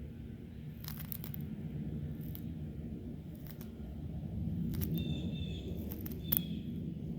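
An animal chewing its food, with scattered crisp crunching clicks and one sharper crack a little over six seconds in.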